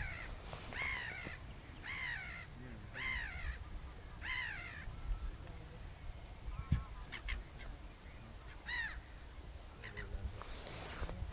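A bird calling in a regular series of five loud, arching calls, a little over one a second, followed by a pause and then scattered shorter calls from birds.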